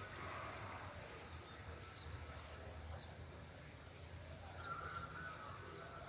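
Small birds chirping faintly at dusk, a handful of short high calls over a low steady background hum.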